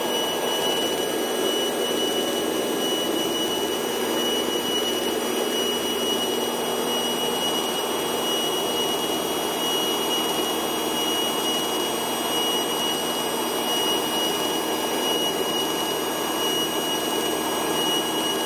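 Steady drone of a light single-engine propeller airplane in cruise flight, engine and propeller running evenly, with a thin high whine held on top.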